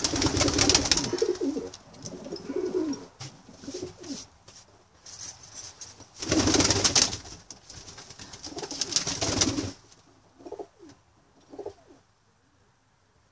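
Homing pigeons cooing in a small loft. Three louder rustling bursts, each about a second long, come at the start, about six seconds in, and about nine seconds in, and a few short coos follow near the end.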